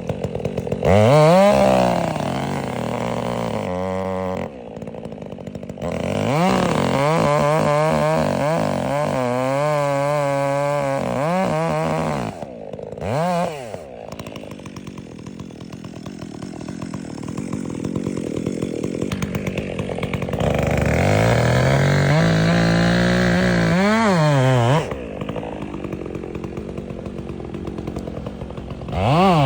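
Two-stroke Stihl chainsaw revving up and cutting into wood several times to make a tree's face cut. Between cuts it drops back to a ticking idle.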